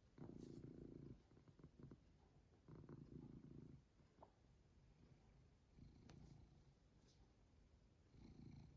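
Domestic cat purring deeply in pulses of about a second each, four in all, coming every two to three seconds like breaths. The purr sounds much like a person snoring.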